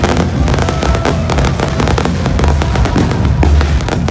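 Fireworks going off in quick succession: many sharp cracks and pops over a continuous deep rumble of booms, with music playing underneath.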